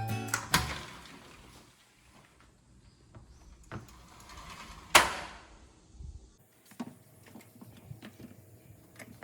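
Background music fading out, then quiet handling sounds with scattered light clicks and one sharp clack about five seconds in.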